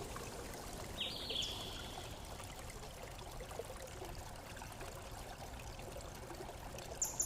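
Faint steady hiss, with a few short high chirps stepping down in pitch about a second in and one brief higher chirp near the end.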